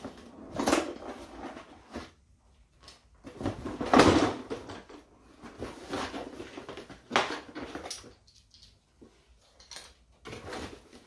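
Cardboard appliance box being handled and shifted on a lap: a series of rustles, scrapes and bumps, the loudest about four seconds in.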